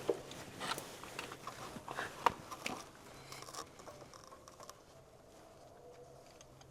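Irregular light clicks and knocks of hand tools and parts being handled during spark plug work, the sharpest knock about two seconds in, thinning out after about three seconds. Faint steady tones lie underneath.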